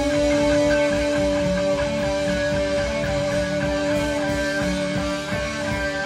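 Live rock band playing: an electric guitar holds one long steady note over the drums and bass.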